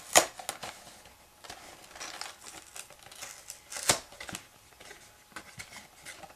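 A cardboard LEGO set box being handled and opened by hand: sharp snaps and taps of the cardboard with crinkling and rustling between them. The loudest snap comes just after the start, another about four seconds in.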